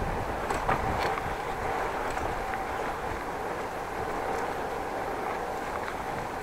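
Steady rolling noise of a bicycle being ridden on a city street: tyre and road noise with a faint steady hum, and a few light clicks or rattles around the first second.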